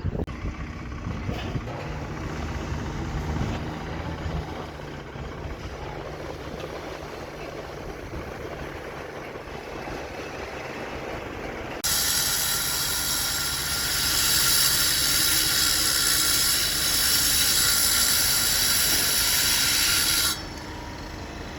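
A machine engine running steadily. About twelve seconds in, a loud, high, steady hiss like escaping air or spray cuts in, holds for about eight seconds, then cuts off suddenly while the engine runs on.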